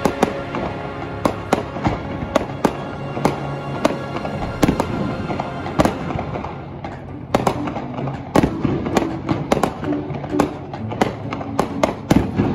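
Aerial fireworks shells bursting in an irregular string of sharp bangs, coming thicker from about halfway, over background music.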